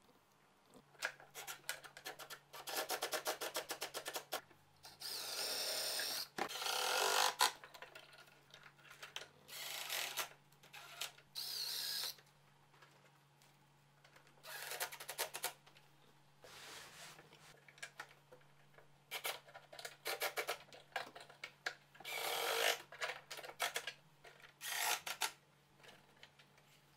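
Milwaukee cordless impact driver driving screws through a gas spring's mounting bracket into plywood. It comes in repeated short runs of a second or two with pauses between, some runs with rapid hammering impacts as the screws seat.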